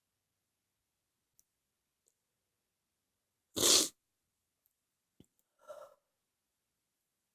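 A single loud human sneeze about three and a half seconds in, lasting under half a second, followed about two seconds later by a much quieter, brief vocal sound.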